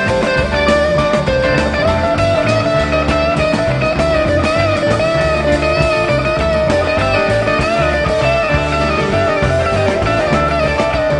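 Background rock music with a wavering electric guitar melody over a steady bass line.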